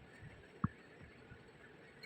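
A single light knock about two thirds of a second in, with a brief ring, over a faint background.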